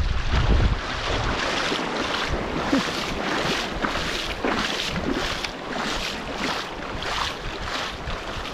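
Shallow surf being splashed through by someone wading, with about two sloshing splashes a second. Wind buffets the microphone for the first second.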